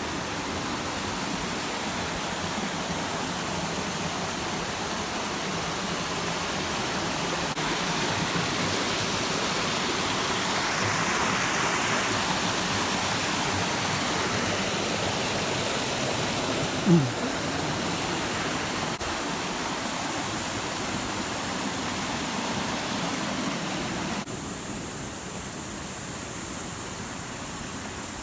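Waterfall: steady, dense noise of falling water. About seventeen seconds in, a brief sharp sound drops quickly in pitch, the loudest moment, and the water noise steps down a little near the end.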